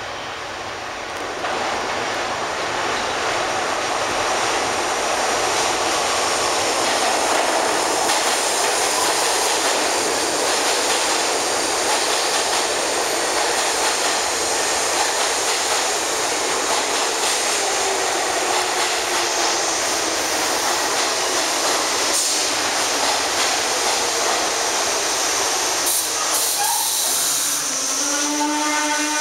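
New York City subway R62A train pulling into an underground station. Its wheels rumble and clatter over the rails as the cars pass, and a whine falls in pitch as it slows. Near the end there is a pitched squeal as it brakes toward a stop.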